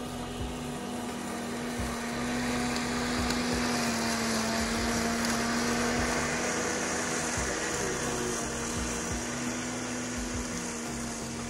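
Electric motor of a 3D-printed RC lawn mower spinning its cutting blade with a steady hum, over a whooshing hiss of the blade cutting grass that swells about halfway through as the mower passes close.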